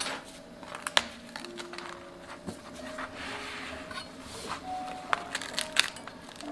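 Metal spatula clicking and scraping against a wooden board while a thin crepe is folded over its filling: a few sharp clicks, one about a second in and two near the end, with a soft rustle of the crepe in between.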